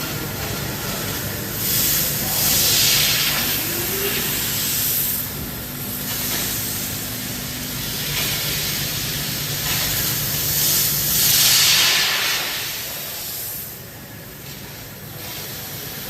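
A 5-axis fiber laser cutting machine at work: gas hisses from the cutting head in two long surges over a steady low machine hum, and the hiss drops away near the end.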